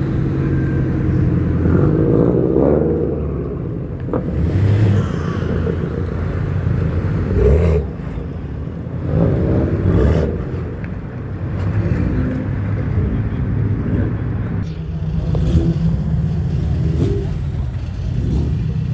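Car engines running, with a loud low rumble that rises and falls.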